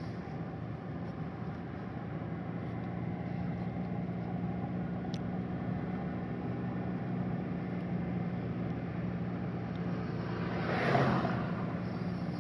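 A car's engine and tyres droning steadily, heard from inside the cabin. Near the end a brief whoosh swells and fades as an oncoming vehicle passes.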